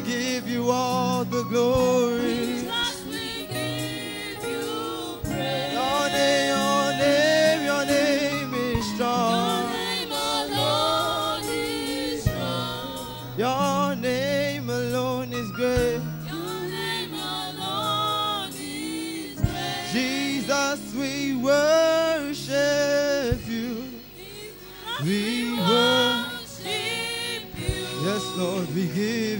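Gospel group singing a worship song, voices with wavering vibrato over sustained low accompaniment.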